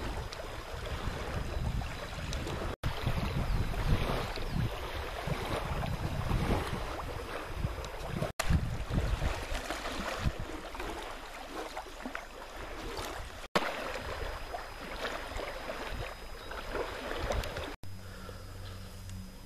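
Wind buffeting the microphone over small waves lapping at the shore, broken by several abrupt cuts. Near the end it switches to a quieter, steady low hum.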